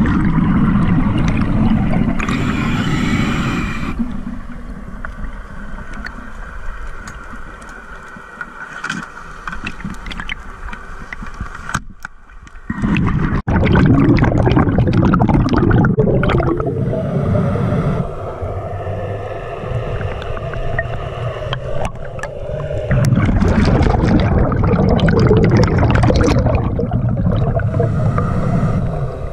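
Scuba diver breathing through a regulator underwater, with long bursts of exhaled bubbles at the start, about halfway and near the end, and quieter stretches between.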